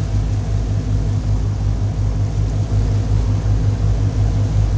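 Boat engine running steadily, a low drone with an even pulsing beat.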